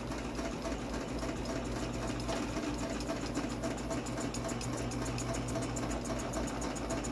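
Bunnell jet ventilator pulsing rapidly at its set rate of 420 breaths a minute, about seven quick puffs a second, over a steady low hum.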